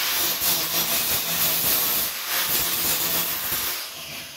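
Angle grinder grinding the edge of a steel car wing, taking a little more metal off. It runs steadily, then winds down near the end.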